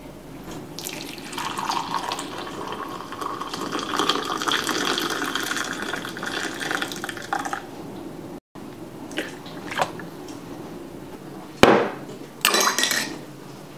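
Coffee poured in a steady stream into a ceramic mug for about seven seconds. After a cut come a few light clicks, then a sharp knock, the loudest sound, and a short clattering burst near the end.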